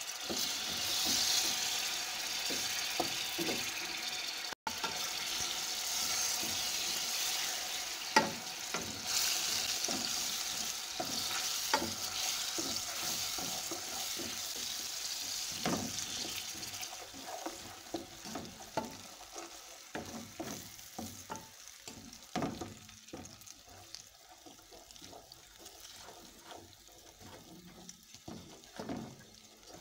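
Butter sizzling as it melts in hot caramelised sugar in an aluminium saucepan, stirred with a wooden spatula that scrapes and knocks against the pan. The sizzle is strongest in the first half and dies down toward the end.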